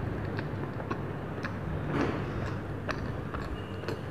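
Close-up chewing of a mouthful of soft cream-filled donut: small wet mouth clicks and smacks, irregular at about three a second, over a steady low hum.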